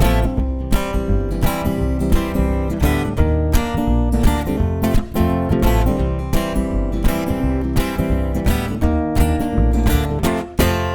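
Live band playing an instrumental intro: acoustic guitar strumming chords over an upright bass line, with no vocals yet.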